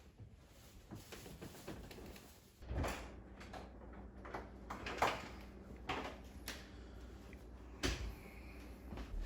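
Scattered separate knocks and clicks, with a low steady hum setting in about two and a half seconds in.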